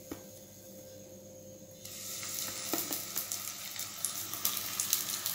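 Hot vegetable oil in a kadai, quiet at first, then a stuffed pancake roll goes in about two seconds in and the oil starts sizzling steadily, with many small crackling pops.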